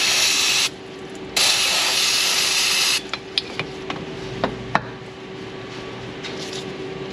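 CRC aerosol spray can hissing in two bursts, with a short break just under a second in; the spray stops about three seconds in. A few light clicks and taps follow.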